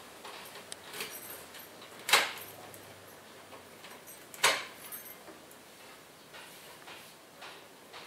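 Key working in the lock of a wooden door, with small metallic clicks and keys jangling, and two loud sharp clunks about two and four and a half seconds in.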